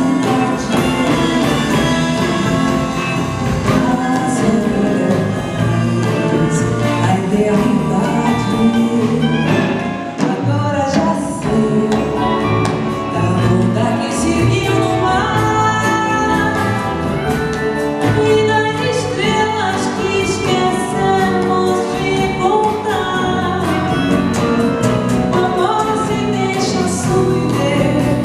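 Live music: a woman singing a melody with an orchestra accompanying her.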